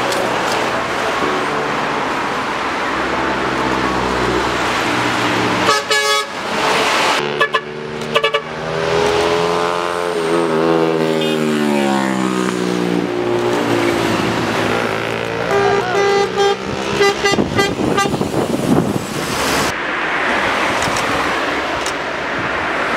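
Buses passing on the road sounding multi-tone telolet horns: short bursts of quick horn notes, and a long horn note that falls in pitch as a bus goes by, over engine and tyre noise.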